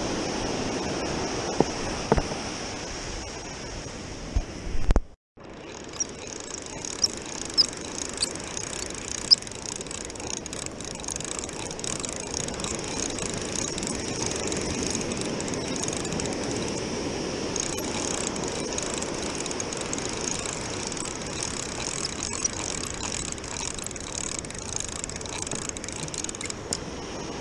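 Fishing reel being cranked, a steady mechanical whir with surf washing behind it, and a few sharp knocks in the first ten seconds. The sound cuts out briefly about five seconds in.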